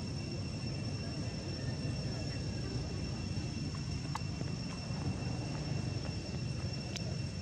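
Steady outdoor background: a low rumble with two constant high thin tones over it, and a faint tick about four seconds in and again about seven seconds in.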